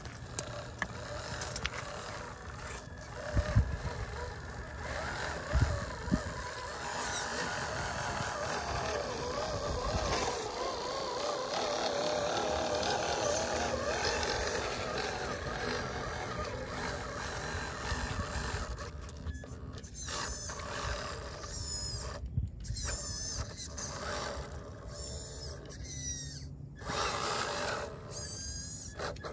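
Small electric motor and gearbox of a radio-controlled panel-truck crawler whining, its pitch wavering with throttle, with two sharp knocks a couple of seconds apart near the start. The whine breaks up into short bursts with brief gaps in the later part.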